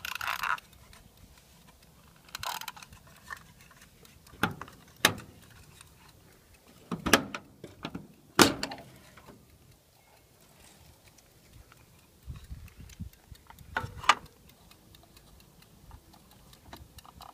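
Handling noises: scattered clicks and a few sharp knocks as a wind-up kitchen egg timer is set and a sheet-metal generator enclosure door is worked. The two loudest knocks come about seven and eight and a half seconds in.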